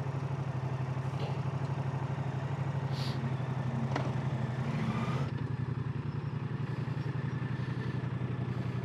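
Moto Guzzi V100 Mandello's 1042 cc transverse V-twin idling steadily in neutral, with a light click about four seconds in.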